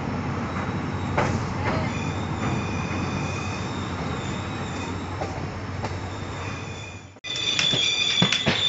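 Passenger train running on the rails with a steady low rumble, high wheel squeal and occasional clicks from the rail joints. About seven seconds in the sound drops out abruptly, then comes back louder with stronger squealing.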